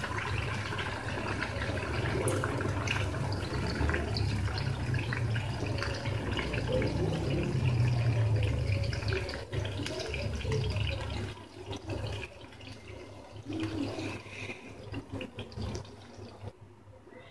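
Hot ghee-and-sugar syrup sizzling and bubbling in a karahi as milk-soaked semolina is poured in. The sizzle dies down and becomes patchy about eleven seconds in.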